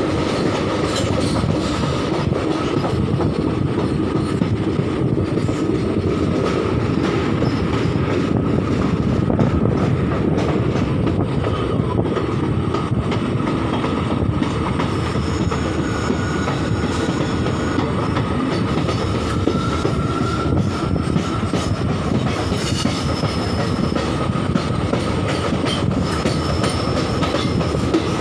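Passenger train running at speed, heard from an open coach door: a steady rumble with wheel clatter over the rail joints, and a thin high squeal from the wheels held throughout.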